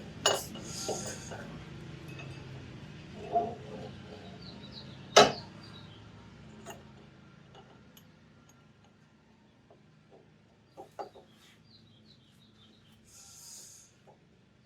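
Scattered clinks and knocks of metal differential parts being handled, with one sharp knock about five seconds in and a few lighter clicks later on.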